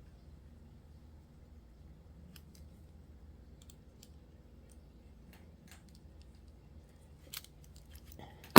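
Faint, scattered light clicks of small metal and plastic RC-car drive-shaft parts being handled as a pin is worked into the CVD shaft's hole, with one sharper knock at the very end.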